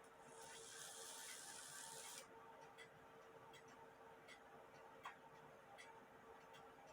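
Faint, regular ticking of an 1880 Alexander Fleig cuckoo clock movement running out of its case on a functioning test. A brief hiss lasts for about the first two seconds.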